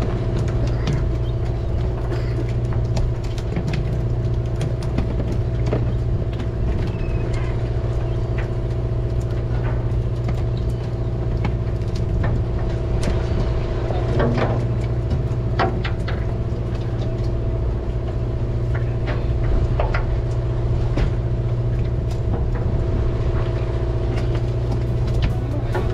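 Fishing boat's engine running with a steady drone, with scattered light clicks and knocks from tackle and gear on deck.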